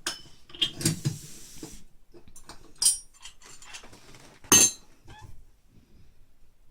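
Iron weight plates clanking against each other and a steel loading pin as weight is added to a Rolling Thunder grip handle: several separate metallic clinks, the loudest about four and a half seconds in.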